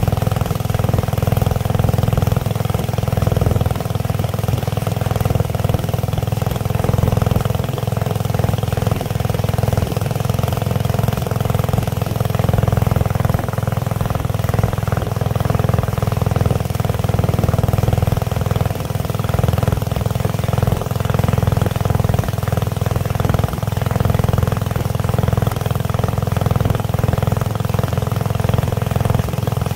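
Boat engine running steadily at cruising speed, a constant low drone with a few steady higher tones and no change in pitch.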